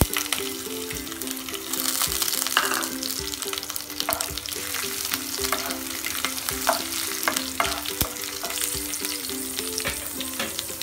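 Chana dal and curry leaves frying in hot oil in a non-stick kadhai: a steady sizzle with scattered crackles and pops, as a wooden spatula stirs them.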